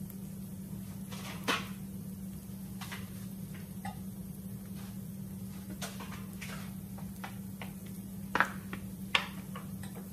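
Scattered kitchen handling noise: light clicks and knocks, with sharper knocks about a second and a half in and twice near the end, over a steady low hum.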